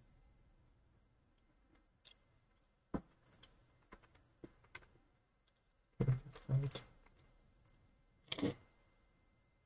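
Faint computer-mouse clicks, scattered and irregular, as image tiles are selected one by one. A louder cluster of knocks about six seconds in and a short rush of noise near the end.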